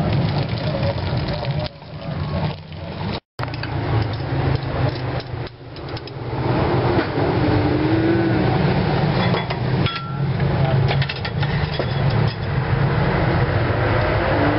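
Street noise with a steady low traffic rumble, over which spoons, bowls and condiment cups clink and knock as a bowl of meatball soup is put together.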